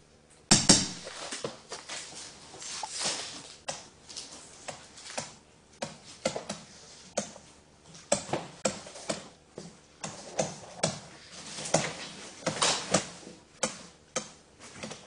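A pen tapping and scraping on a writing surface during handwriting, in short irregular strokes, one or two a second.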